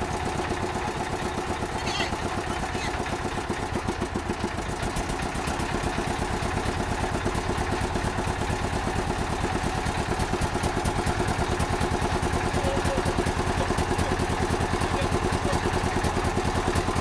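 Engine of a river motorboat running steadily with an even, fast throb, growing a little louder after about five seconds.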